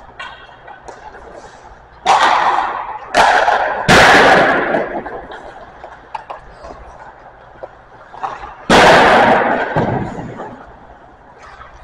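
Four loud, sharp cracks of hockey pucks being shot and striking the boards, three close together and one about five seconds later, each ringing out in a long echo around the ice rink, with lighter clicks of sticks and pucks between.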